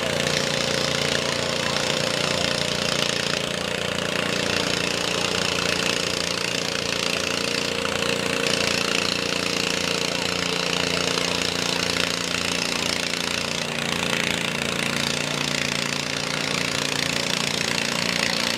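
Lawn-stock garden pulling tractor's small engine idling steadily with a fast, even low putter, the tractor hitched and waiting to start its pull.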